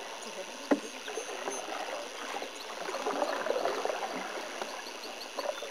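Water gurgling and lapping against a canoe being paddled, with a single short knock about three-quarters of a second in.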